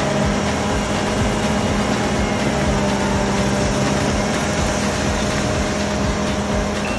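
Diesel engine of a Kubota compact machine running steadily at a constant speed.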